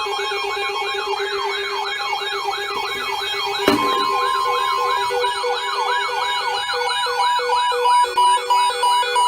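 Electronic siren in a fast yelp, its pitch sweeping up and down about three times a second over several steady tones. A sharp click comes a little under four seconds in, followed by a steady beep of about a second, and pulsed beeps join in over the last few seconds.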